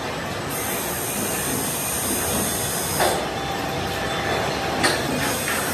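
Steady factory machinery noise, with two sharp knocks about three seconds in and near the end.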